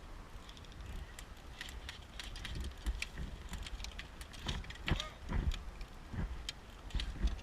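Scattered sharp clicks and crackles with a low rumble on the microphone, and a faint voice near the middle.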